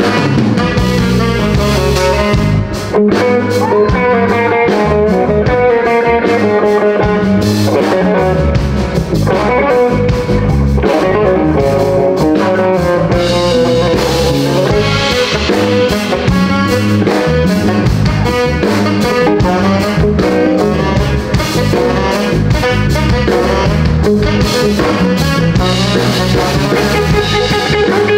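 Live blues band playing, with electric guitar and drum kit over a steady beat.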